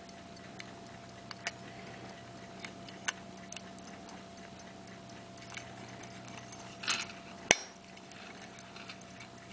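English fusee pocket watch ticking faintly under a low steady hum, with scattered light clicks from handling and one sharper click about three quarters of the way through.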